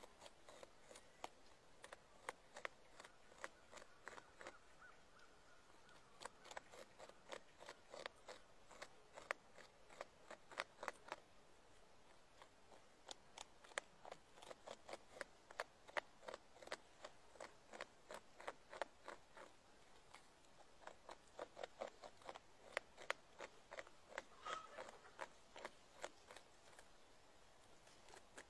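Beaver gnawing a tree trunk, its front teeth chiselling into the wood in a quick, uneven run of sharp clicks.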